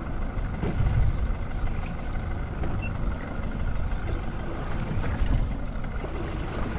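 Fishing boat's engine running steadily, a low continuous rumble with wind and water noise over it.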